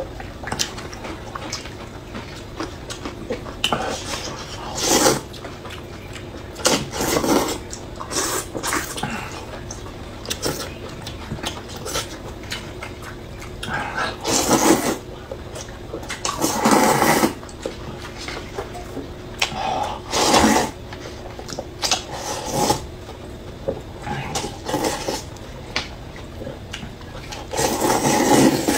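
People slurping noodles and chewing: loud, wet slurps at irregular intervals, some long and drawn out, with softer mouth sounds in between.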